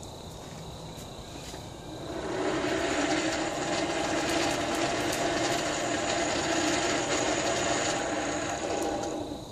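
Champion 400 hand-crank forge blower being cranked, its gears and fan whirring steadily as it forces air into a newly lit coal fire. It comes up to speed about two seconds in and runs down just before the end.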